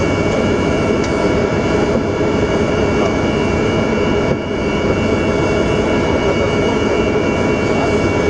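The An-124 Ruslan's four Progress D-18T turbofans running steadily during taxi, heard inside the cockpit: a steady high whine over a loud rushing noise. The level dips slightly and briefly about four seconds in.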